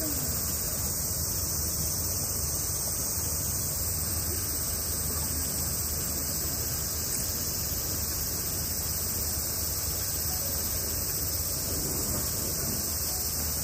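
Steady, unbroken high-pitched hiss of a summer cicada chorus, with a low steady hum underneath.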